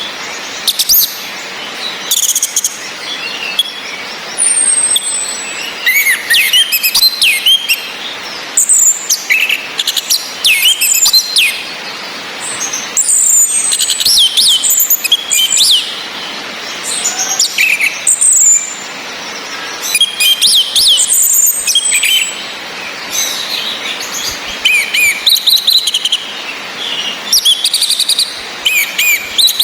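Orange-headed thrushes calling and singing: a string of sharp high chirps and quick whistled phrases, some sliding downward, over a steady hiss of rain.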